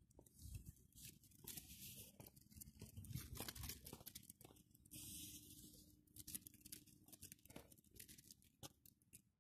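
Faint rustling and scuffing with scattered light clicks, the noise of walking dogs on leads along a paved sidewalk, with two short spells of louder hissy rustle.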